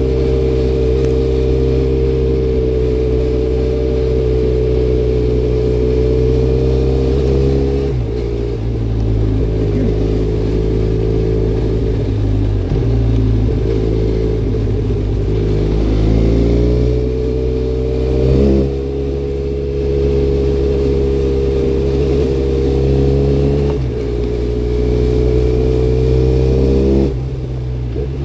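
Benelli Leoncino 500 Trail's 500 cc parallel-twin engine running under way through an aftermarket MIVV Double Gun exhaust. The engine note drops about eight seconds in, climbs again after about sixteen seconds, and dips briefly twice later on.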